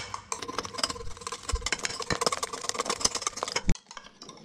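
Wire whisk beating eggs, oil and powdered sugar into cake batter in a bowl: a fast, irregular run of clicks and scrapes as the wires strike the bowl's sides, stopping about three and a half seconds in.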